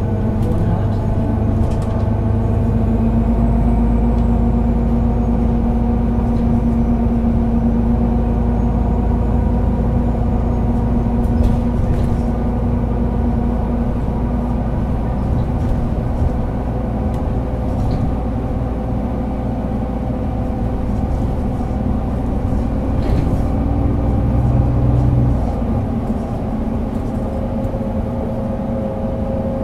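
Solaris Urbino 12 III city bus engine running while the bus drives, a steady drone whose pitch shifts in steps a few times, with a few light clicks and rattles.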